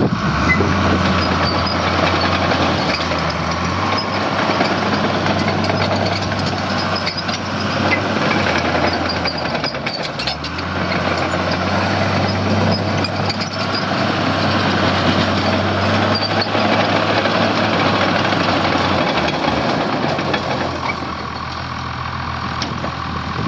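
Case 850G bulldozer's diesel engine running, its note shifting several times as the load changes, with a brief dip about ten seconds in and a drop near the end.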